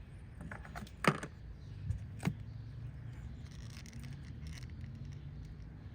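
Clicks and light rattling of a small plastic coil pack connector and its clip being handled, with a sharp click about a second in and two more around two seconds in, over a steady low hum.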